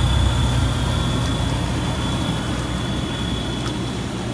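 Coleman inflatable hot tub's bubble-jet air blower running steadily just after being switched on: a motor hum with a high, steady whine, and air bubbling up through the water.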